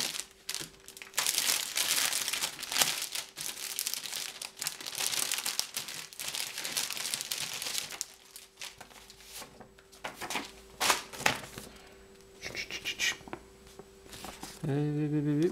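Clear plastic sleeve crinkling and rustling as it is opened and a printed paper list is pulled out, busiest for the first half. After that come quieter paper rustles and light handling clicks.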